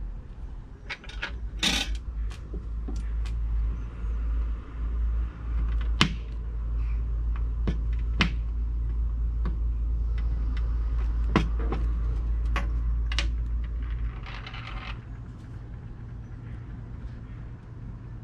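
Small metal tools and lighter parts being handled on a workbench: scattered sharp clicks and taps, about six in all, with two brief scraping rustles, over a steady low rumble that fades out about fourteen seconds in.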